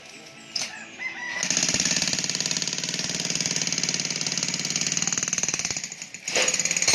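Jackhammer running on wood in a fast, even hammering rhythm for about four seconds, then a short second burst near the end.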